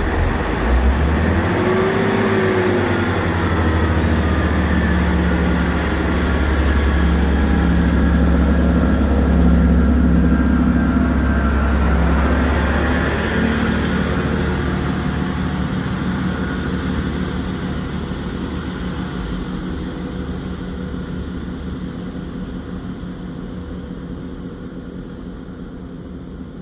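Diesel multiple unit pulling out of a station: its underfloor diesel engines run with a loud, deep, steady hum under power, then fade gradually over the second half as the train moves away.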